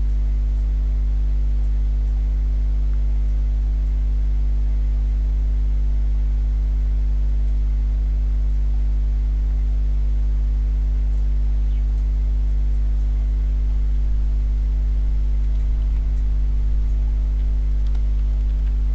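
Steady electrical mains hum with a stack of even overtones, unchanging throughout: electrical interference picked up by the recording setup.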